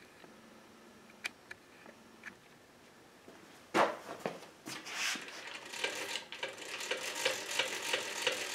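A sharp knock about four seconds in, then from about six seconds a steady run of rapid mechanical clicks, several a second, from the drill press's rack-and-pinion crank being turned to move the rod past the dial test indicator.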